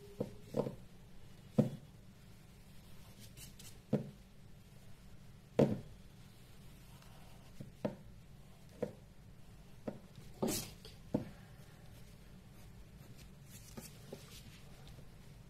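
Pencil sketching on paper, with about a dozen irregular sharp taps and knocks of the pencil and hand against the paper and the table.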